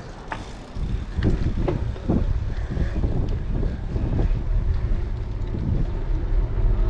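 Wind rumbling on a bike-mounted GoPro's microphone, with the bicycle rolling over the pavement. It starts about a second in as the bike gets moving and stays steady after that.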